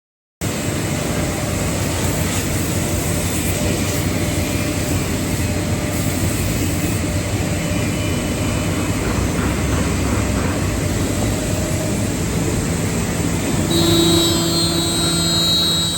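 Five-axis CNC wood router running: steady machine noise, with a steady whine joining in about 14 seconds in.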